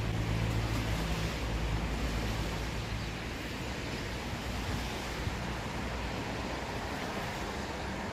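Steady outdoor noise like wind on the microphone, with a low engine-like hum that is strongest in the first second and then fades.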